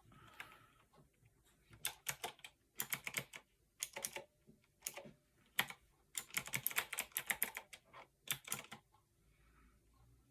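Fineday mechanical keyboard being typed on: irregular runs of key clacks starting about two seconds in and stopping shortly before the end.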